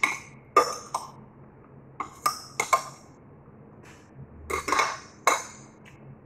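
Metal spoon clinking and scraping against a ceramic plate during a meal: a string of short, sharp clinks, with a cluster about two seconds in and another near the end.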